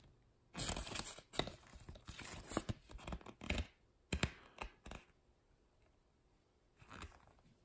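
Pages of a paper instruction booklet being turned and handled, rustling in irregular bursts with a few short sharp clicks in the middle, then a pause and a last brief rustle near the end.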